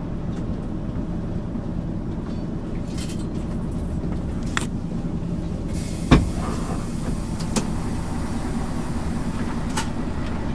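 MAN ÜL 353 bus under way, heard from on board: a steady low drone of engine and drivetrain, with a few light rattles and one sharp knock about six seconds in.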